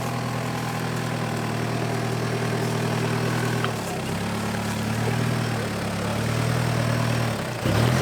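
Off-road truck engine running at low revs, its pitch rising and falling a few times from about four seconds in as the driver works the throttle on a rocky climb, with a brief dip near the end.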